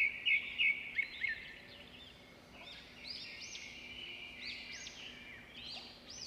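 Birds chirping outdoors: about five short, loud notes in the first second or so, then many repeated arching chirps that rise and fall in pitch. A faint steady low hum runs underneath.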